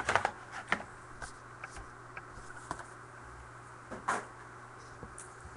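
Scattered light clicks and rustles as a trading-card box and its plastic wrapping are handled, with one louder knock about four seconds in. A steady low hum runs underneath.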